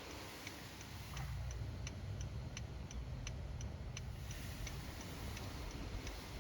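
Faint, steady mechanical ticking, about three ticks a second, over a low hum.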